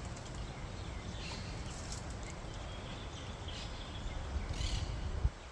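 A few faint, short bird chirps over a steady low rumble of outdoor noise.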